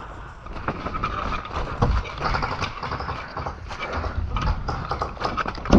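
Footsteps through wet grass and mud, with clothing and gear rustling against a body-worn camera microphone as irregular knocks and brushing; a sharper knock comes near the end.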